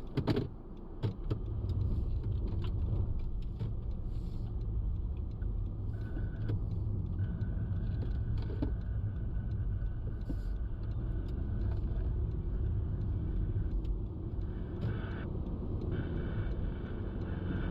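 Steady low rumble of a car driving, heard from inside the cabin, after a sharp knock about a quarter of a second in.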